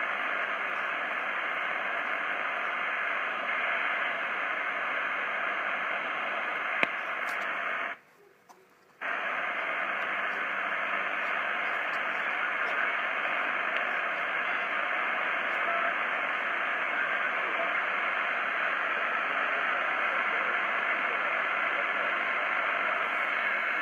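Homemade 80 m QRP SSB receiver giving out a steady hiss of band noise through its speaker while it is tuned across the band in lower sideband. The audio drops out for about a second a third of the way in.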